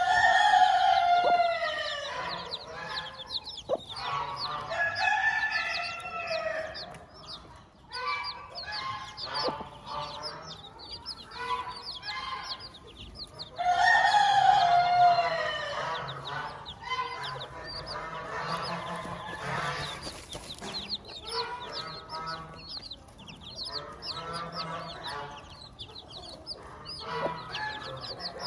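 Chickens: a rooster crows twice, once at the start and again about halfway, over hen clucking and the constant high peeping of chicks.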